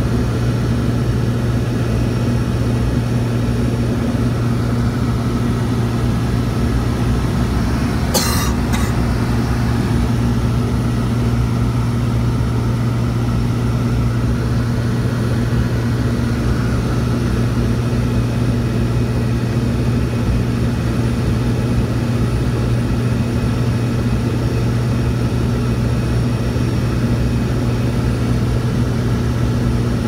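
Propeller airplane engine drone heard inside the cabin: a steady low hum of constant pitch over a wash of engine and air noise. A brief, sharp hissy noise cuts in about eight seconds in.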